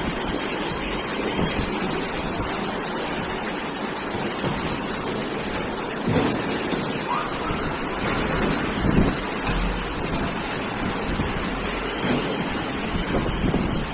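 Steady rushing noise of storm wind and water, with wind buffeting the microphone and a few louder surges about six and nine seconds in.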